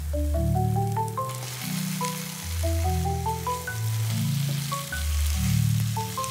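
Food sizzling as it cooks, the hiss starting about a second in, under background music with a deep bass line and a plucked melody.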